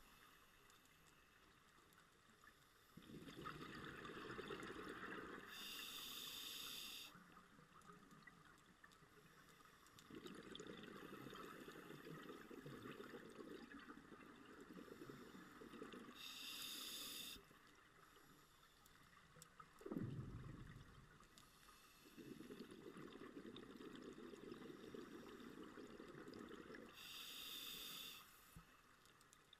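A scuba diver breathing through a regulator underwater: three slow breaths, each a short hiss on the inhale and a long bubbling rumble of exhaled air. About two-thirds of the way through there is a brief low sound that falls in pitch.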